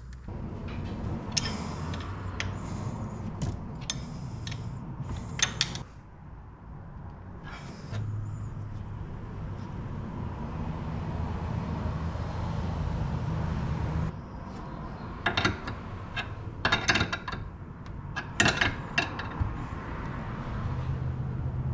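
Metal hose-end fittings and a rubber oil hose clicking, knocking and rubbing as they are handled and fitted in an engine bay, with a burst of clatter late on. A steady low hum runs underneath.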